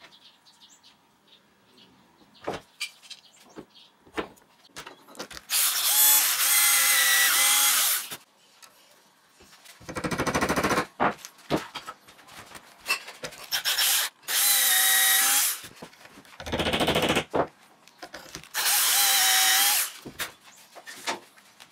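Electric drill boring holes through wooden knife-handle scales for the handle pins. It runs in about five bursts of one to two seconds each, some with a steady whine and others rougher, with small clicks and knocks between them.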